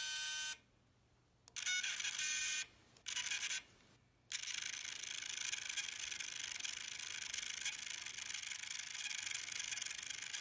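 Small electric motors of Gibson G-Force robotic guitar tuners whirring in three short bursts separated by silent gaps, then a continuous whir from about four seconds in.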